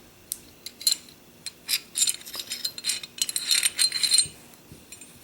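Steel barrel bushing and barrel of a Norinco 213 pistol clinking and scraping as the bushing is rotated and the barrel and bushing are taken out of the slide. It is a string of light metallic clicks and clinks, thickest from about two to four seconds in.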